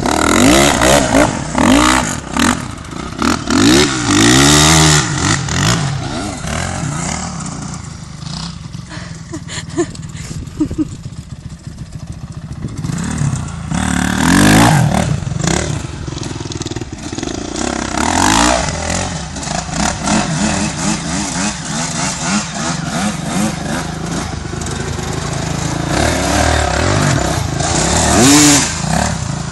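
Dirt bike engines revving up and dropping back over and over, the pitch climbing and falling with each throttle burst and gear change as the bikes ride a sand track. Loudest at the start, about halfway and near the end, with a quieter stretch about a third of the way in.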